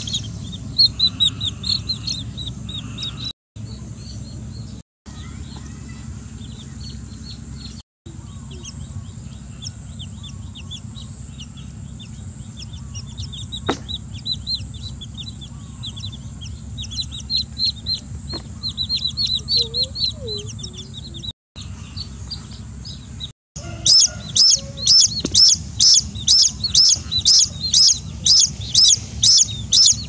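Small chicks peeping repeatedly, short high falling peeps; in the last few seconds the peeps grow loud and regular, about two a second.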